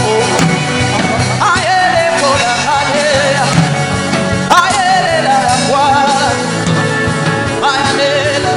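Background worship music: a dense, steady accompaniment with long, wavering melodic notes that enter about every three seconds.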